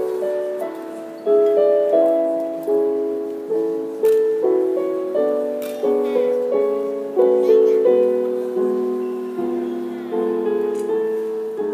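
Instrumental music: a slow melody of single notes on a struck or plucked instrument, each note starting sharply and ringing away, about one to two notes a second.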